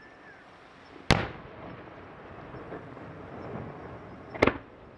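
Two loud bangs from aerial fireworks shells, about three seconds apart. The first trails off in a rumbling echo.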